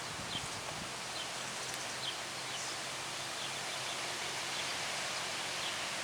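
Steady outdoor background noise with faint, short bird chirps repeating roughly every second.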